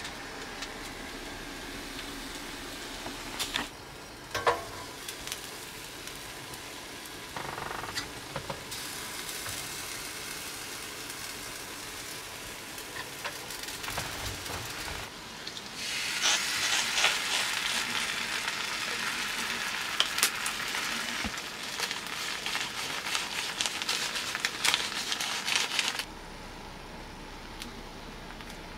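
Okonomiyaki frying on an electric hot plate: a soft, steady sizzle that turns loud and crackling once the lid is lifted, then cuts off abruptly near the end.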